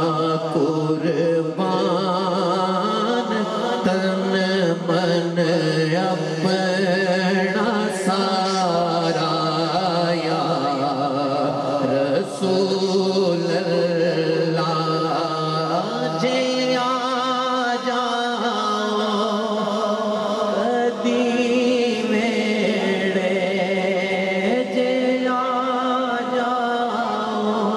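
Male naat reciter singing unaccompanied into a microphone: one long, unbroken melismatic line of held notes, ornamented with a wavering, trill-like quaver.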